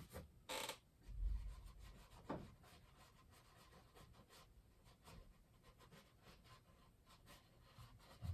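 Painting knife scraping faintly across a canvas, laying on thick oil paint: a short scrape under a second in, a dull knock just after, then faint intermittent strokes.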